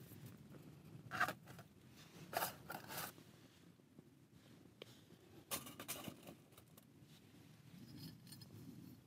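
Quiet handling of a camp cook set: a metal mug scraping and clinking as it is set onto a small gel-fuel stove and windscreen, in a few short bursts about a second in, around two and a half seconds and around five and a half seconds.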